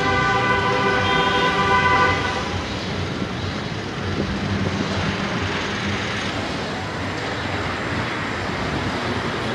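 A vehicle horn held for about two seconds and stopping, then steady traffic and road noise.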